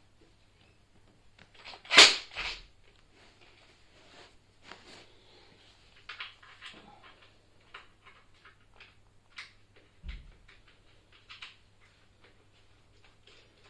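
Handling noise from fitting an inner tube into an e-scooter's rear tyre: irregular clicks, knocks and scrapes of tyre, tools and scooter parts being worked by hand, with a sharp knock about two seconds in and a duller thump near ten seconds.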